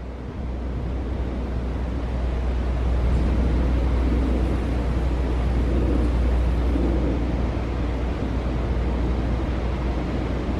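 Steady low outdoor rumble with no clear single source, growing louder over the first couple of seconds and then holding.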